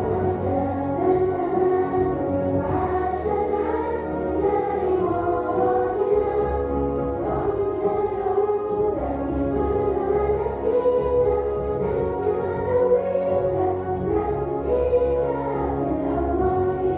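Music with a choir of voices singing over instrumental accompaniment.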